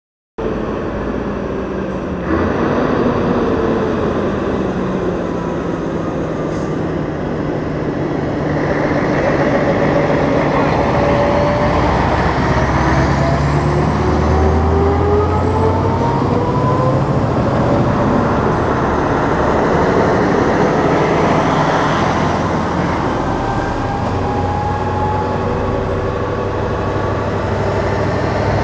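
Diesel engines of heavy-haul tractor units, a Mercedes-Benz Actros in front and a second truck behind, pulling a heavily loaded low-loader past at low speed. The engine pitch rises and falls as they pull through the gears, over a steady rumble of tyres and running gear. The sound cuts in just after the start and steps up in level about two seconds in.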